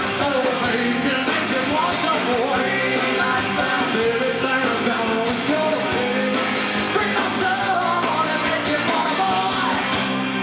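A rock band playing live: electric guitar, bass and drums under a male lead singer, loud and steady.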